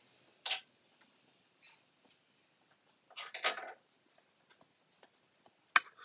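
Scattered rustles and scuffs of someone moving about a bare room, with a longer scraping rustle about three seconds in. Near the end comes a sharp knock as the phone doing the recording is handled.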